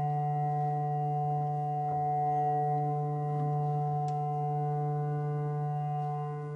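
Music: a sustained drone of several steady tones held together, the lowest one loudest, with no rhythm and no change in pitch.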